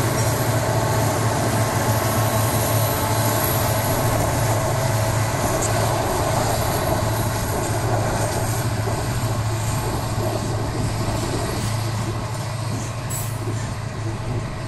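Freight train passing close by: the trailing FWWR diesel locomotive goes past first, then a string of covered hopper cars rolls by with a steady low rumble of steel wheels on rail. The sound slowly fades as the cars continue.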